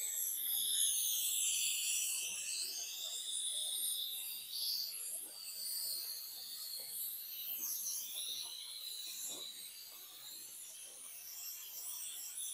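A chorus of insects calling, a shrill high-pitched trilling in several wavering layers, with faint light ticks and taps beneath it.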